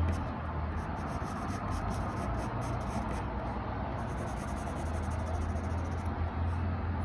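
HB graphite pencil scratching on paper in a run of short, quick strokes as eyelashes are drawn in. A low steady hum lies underneath.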